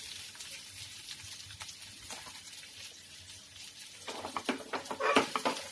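Chopped onion and green chillies sizzling in hot oil in a pan, a steady crackle. From about four seconds in it gets louder, with sharper crackles and knocks of a spoon stirring in the pan.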